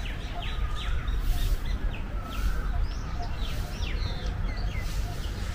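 Small birds chirping in many quick, short, falling calls, over a steady low rumble.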